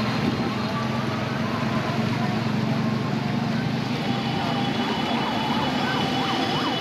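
Steady low vehicle-engine rumble with traffic and water noise from the flooded road. From about five seconds in, a fast yelping siren joins, its pitch rising and falling about three times a second.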